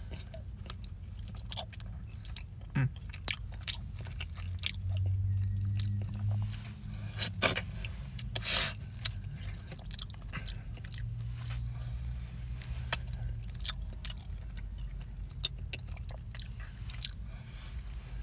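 Someone eating a Dairy Queen Blizzard with chunks of cookie dough and brownie: chewing and mouth clicks with the odd scrape, scattered irregularly over a steady low hum.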